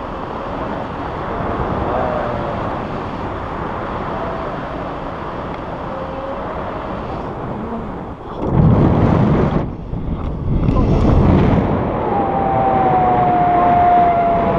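Wind rushing over an action camera's microphone in flight under a tandem paraglider, with two heavier gusts of buffeting a little past the middle. A thin steady tone comes in near the end.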